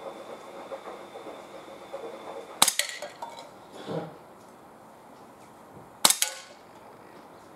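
Two shots from a CO2-powered Sig Sauer P226 X5 BB pistol, about three and a half seconds apart. Each is a sharp crack followed closely by the metallic ping of a BB striking a tin can. About a second after the first shot there is a softer knock as the hit can falls.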